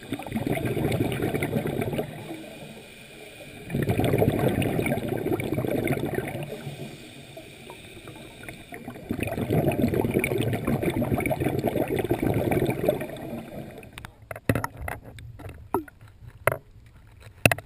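Scuba regulator exhaust bubbles heard underwater: three long exhalations a few seconds apart, with quiet gaps for the in-breaths. About fourteen seconds in, the camera breaks the surface and waves slap and splash against it in sharp bursts.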